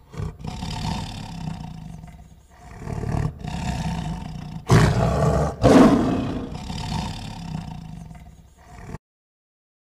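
Tiger roaring: a run of rough roars, the two loudest about five and six seconds in.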